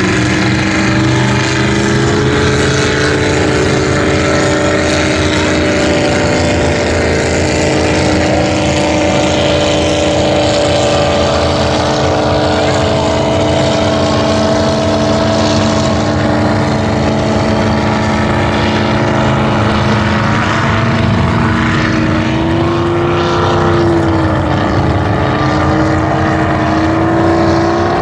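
Racing speedboat engine running hard at speed, a steady drone whose pitch sags and then climbs back up near the end.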